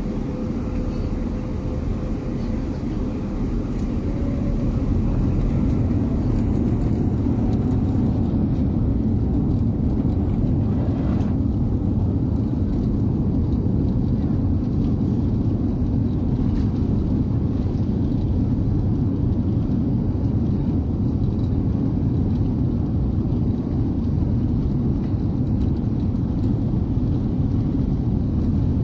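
Cabin noise of a Boeing 787-9 on take-off: a deep, loud jet engine and airframe rumble. It swells over the first several seconds, then holds steady.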